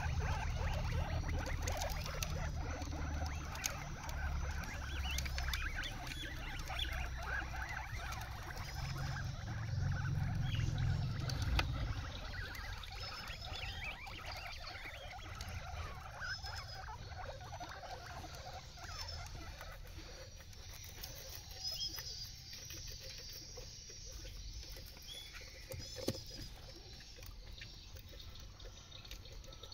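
Guinea pig chewing fresh leafy greens and rustling through the leaves and stems: a dense run of small crunching clicks. It is busiest over a low rumble for the first twelve seconds or so, then thins out and gets quieter.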